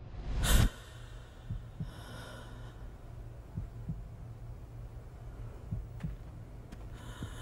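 Film sound design for a wounded character coming to: a rising whoosh swells and cuts off in the first second, then a low drone with a slow heartbeat, paired thumps about every two seconds, and faint breaths.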